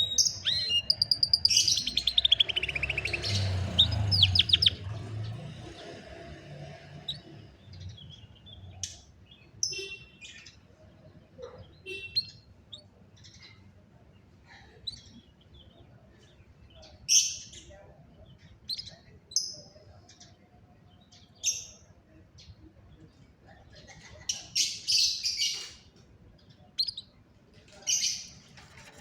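Domestic canary singing: a fast, trilling run of rapidly repeated notes in the first five seconds, then short scattered chirps and calls for the rest.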